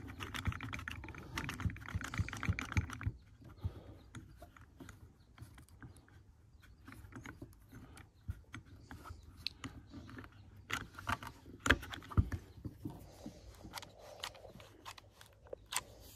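Barb-Tech PQD hose assembly tool, a trigger-operated bar clamp, clicking and knocking as its handle is pumped to press a Push-Lok hose onto a barbed quick-disconnect fitting. Handling noise for the first few seconds, then scattered sharp clicks, with a few stronger knocks about eleven to twelve seconds in.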